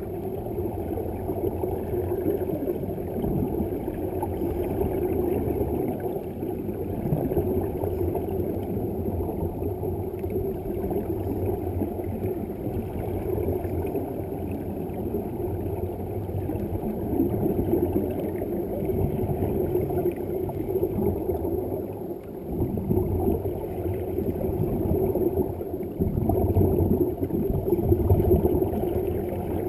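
Underwater sound of scuba divers breathing through their regulators: muffled, continuous bubbling and gurgling of exhaled air, swelling in bursts as breaths are let out.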